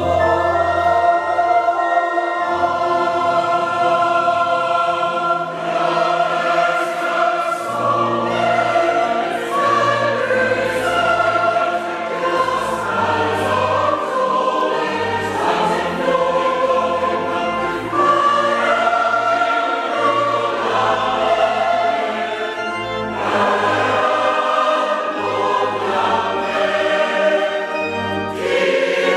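Large mixed choir of men's and women's voices singing a Swedish hymn in sustained, changing chords.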